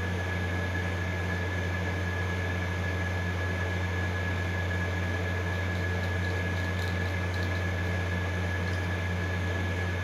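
Steady machine hum and whir, like a fan or air conditioner running, with a constant thin high-pitched whine over it. A few faint light ticks come about seven seconds in.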